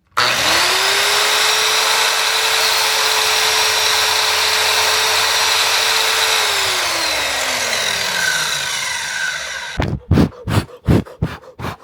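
Electric power tool motor spinning up to speed, running steadily for about six seconds, then winding down as it coasts to a stop. Near the end, a quick series of about six short, sharp bursts.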